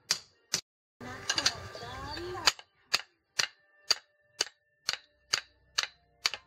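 Hand hammer striking a steel machete blade: sharp metallic clanks, each followed by a brief ringing tone, settling in the second half into a steady beat of about two strikes a second.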